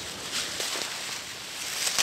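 Dry reed stalks rustling and crackling as they are pulled and bundled by hand, in several short, uneven rustles.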